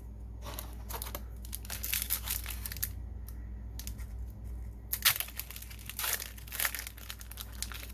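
A trading-card booster pack's foil wrapper being torn open and crinkled by hand, in two spells of crackling with the loudest crackle about five seconds in.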